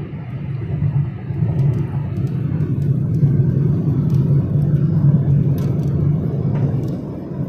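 Steady low road and engine rumble of a moving vehicle, heard from inside its cabin, growing louder over the first couple of seconds as it drives into a rock tunnel.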